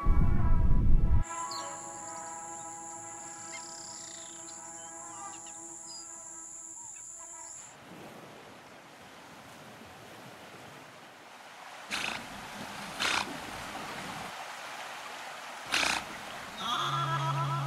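Cinematic hybrid score with wildlife sound design. A deep, loud boom opens it, then sustained pitched tones with a steady high ringing above. After that comes a wash of noise broken by a few short, rough animal calls.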